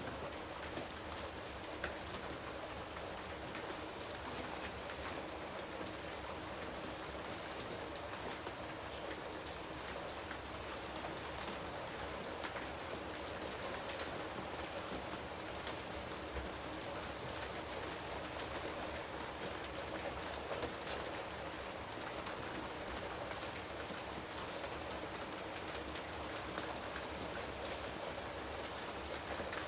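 Steady rain falling in a jungle, an even hiss with many separate drops pattering close by.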